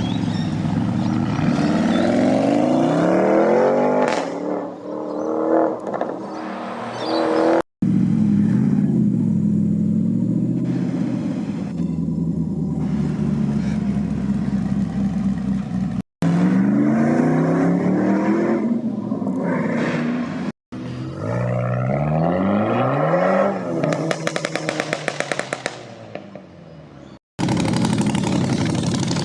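Performance car engines revving hard and accelerating away through loud exhausts, in several separate passes that each cut off abruptly. Near the end, one exhaust gives a fast run of crackles and pops as the revs drop.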